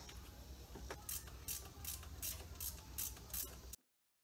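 Ratcheting box-end wrench clicking in a steady rhythm of about three clicks a second as it backs out an oil pan bolt. The sound cuts off abruptly near the end.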